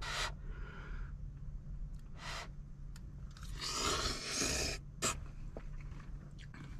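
A person blowing on and slurping hot ramen noodles: a few short breathy puffs and one longer one about three and a half seconds in, over a steady low hum.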